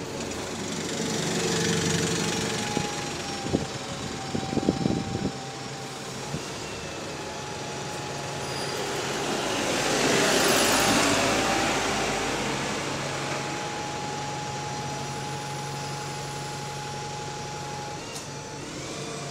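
London buses passing and pulling away, their diesel engines running with the steady whine of electric radiator cooling fans, which holds for several seconds twice. A few sharp knocks come in the first five seconds, and the sound is loudest about ten seconds in as a double-decker passes close.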